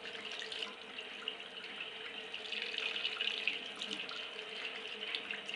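Tap water running steadily into a sink, splashing as a puppy is washed under it.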